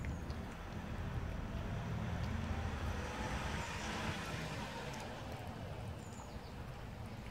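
A motor vehicle passing close by, its noise swelling to a peak about four seconds in and then fading. Faint clicks from the cats chewing wet food sit under it.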